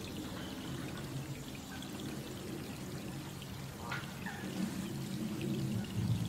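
Steady rain falling on a pond, an even wash of water sound, with a faint short chirp about four seconds in.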